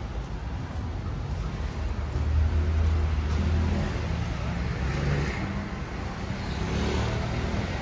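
Road traffic on a busy city street: a steady low rumble of vehicle engines, growing louder from about two seconds in as a vehicle passes close by.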